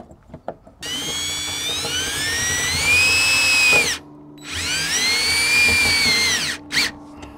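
Cordless drill/driver driving screws to fix a brass spigot flange to an aluminium diamond-plate wall. It runs twice, about three seconds and then about two seconds, with a short pause between; each time the whine rises in pitch and then levels off. A brief click follows near the end.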